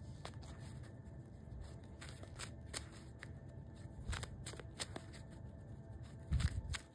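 A deck of cards being shuffled and handled, with scattered light flicks and snaps of the cards. A low thump near the end is the loudest sound.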